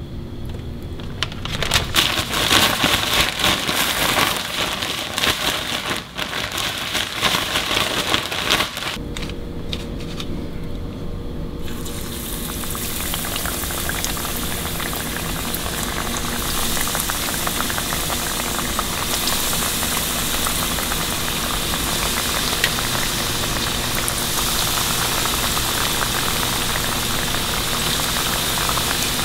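A plastic zip-top bag rustling in bursts for several seconds, then battered catfish strips frying in hot cottonseed oil: a steady sizzle and crackle that starts about twelve seconds in and grows fuller as more pieces go into the pan.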